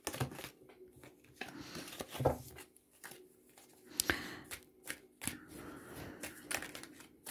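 A Lenormand card deck being shuffled by hand: irregular rustling and light clicking of cards, with a couple of sharper card snaps about four and five seconds in.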